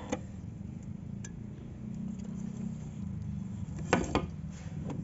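Hand work on car parts: a few light clicks, then two sharp knocks in quick succession about four seconds in, over a steady low hum.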